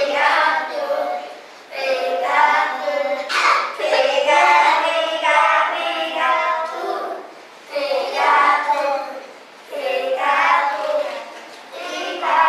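A small group of children singing an English action song together, in short phrases with brief pauses between them.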